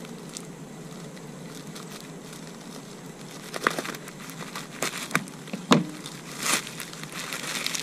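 Bubble-wrap plastic crinkling and crackling as it is cut and torn open with a knife, in a handful of sharp rustles starting about three and a half seconds in, over a faint steady hum.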